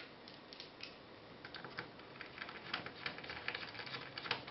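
Faint, irregular light clicks and taps of small screws and case parts being picked up and handled by hand against the case plate.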